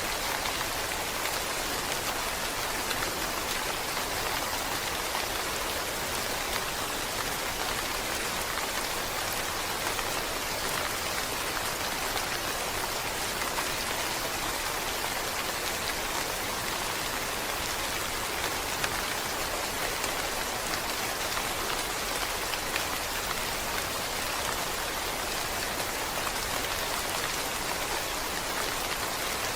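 Steady rain falling, a continuous even hiss with fine pattering drops.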